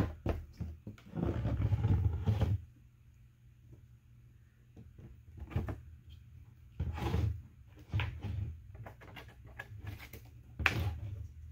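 3D-printed plastic hive parts being handled and set down on a wooden bench: a sharp click, a stretch of scraping and rubbing, then scattered knocks and clicks as the sides are swung and the corner pins seated.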